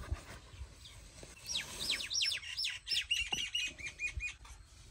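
A songbird singing: about a second and a half in, a run of quick downward-sweeping notes, then a string of short repeated notes at one pitch. Faint knocks come near the start and near the end.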